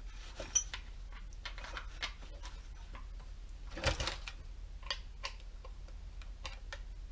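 Irregular light clicks and taps of a small Allen wrench being fitted into and tried on the Allen head bolts of a chainsaw's plastic case, with a louder knock about four seconds in, over a low steady hum.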